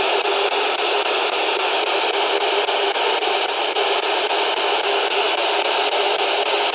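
Spirit box sweeping through radio stations: a steady hiss of static with faint regular clicks, several a second, as it steps from station to station.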